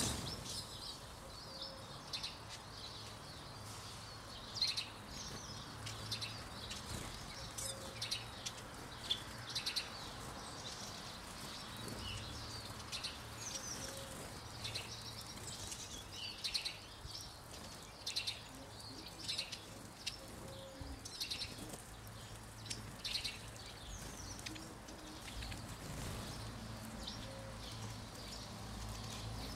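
Eurasian siskins calling at a bird feeder: many short, high chirps and twitters, scattered irregularly, one or two calls every second or so.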